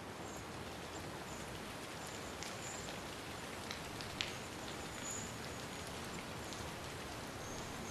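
Steady rain falling, with scattered drops tapping and a sharper tick about four seconds in.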